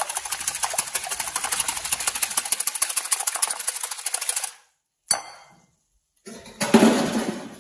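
Wire whisk beating eggs in a glass bowl: fast, even clicking strokes of the wires against the glass, stopping after about four and a half seconds. A short knock follows about a second later, and a louder noise comes just before the end.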